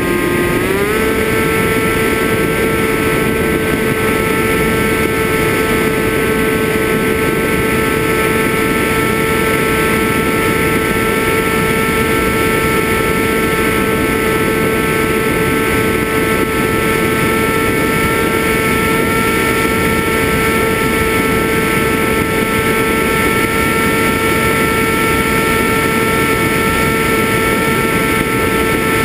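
FPV quadcopter's motors and propellers whining at a steady pitch. The pitch steps up about a second in as the throttle rises, then holds, over a steady rushing noise.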